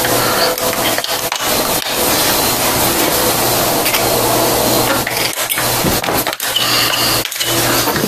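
Rubbing and rustling handling noise close to the microphone, with scattered clicks and knocks, as an AR-15 rifle is moved about and handled on a towel-covered table. A steady low hum runs underneath.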